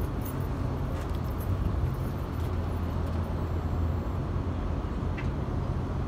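2001 Subaru Forester's flat-four engine idling steadily, a low even hum.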